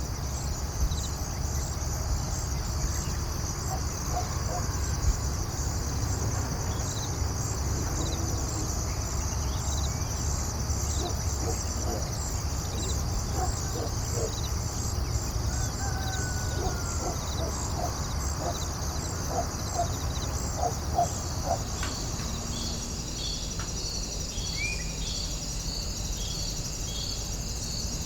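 Outdoor nature ambience: insects chirp steadily in fast, even pulses over a continuous low rumble. A run of short calls comes through roughly a third to three quarters of the way in.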